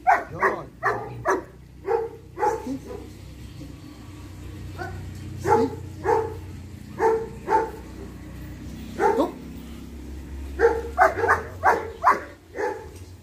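A dog barking in quick runs of several sharp barks, with a few single barks and pauses between the runs. A low steady hum runs underneath.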